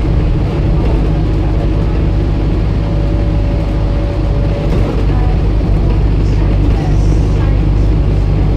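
Scania N230UD double-decker bus with an ADL Enviro 400 body, heard from the upper deck: its five-cylinder diesel engine runs as a steady low drone. A thin whine holds for a few seconds and stops about halfway through, and light rattles come near the end.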